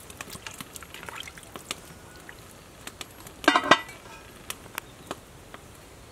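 Faint clinks and small liquid sounds from duck soup simmering in an aluminium pot, then a short, loud metallic screech about three and a half seconds in as the aluminium lid is set on and scraped against the pot's rim.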